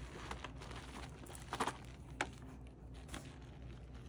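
Faint handling sounds of a handbag being opened and turned over: a few soft clicks and rustles, the clearest about one and a half and two seconds in.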